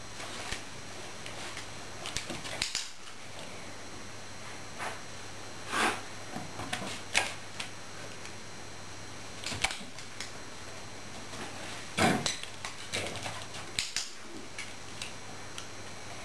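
Irregular clicks and light taps of a Border Collie puppy's paws and claws on a wooden floor and on a plate it steps on, with a few louder knocks about six and twelve seconds in.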